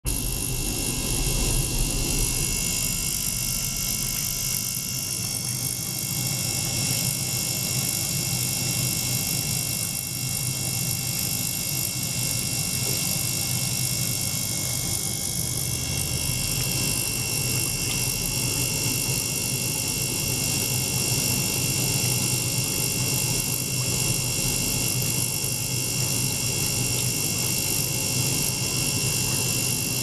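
Small motor-driven circulation pump running steadily and pushing water through tubing into an ultrasonic tank, with a low hum under a steady high-pitched whine made of several tones.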